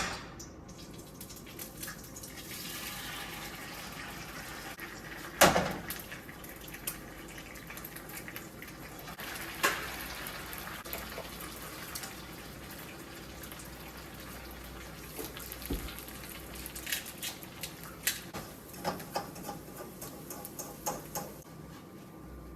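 Kitchen sounds: water running from a tap for a few seconds, then dishes and utensils knocking and clinking, with two sharper knocks and a run of quick clicks near the end.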